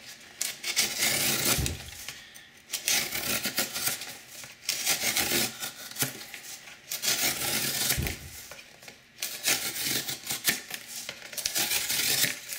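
A knife blade of Maxamet steel (Spyderco Mule Team) slicing strips off corrugated cardboard: about five rasping draw cuts, each one to two and a half seconds long, with short pauses between them.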